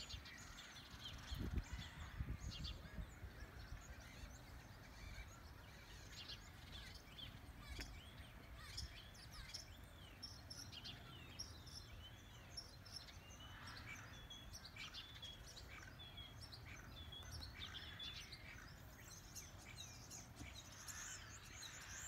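Faint chirping and twittering of small birds, many short calls that thicken from about eight seconds in, over a low steady outdoor rumble.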